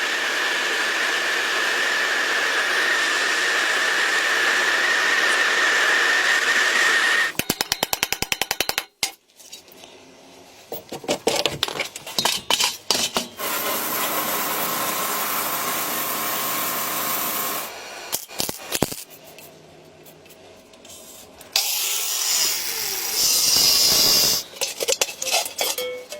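Power tools working on the metal of a motorcycle gas tank. A steady, loud run with a whine lasts about seven seconds and ends in a quick string of clicks. After scattered knocks and handling sounds, a second steady tool run comes partway through, then a loud, high-pitched run near the end.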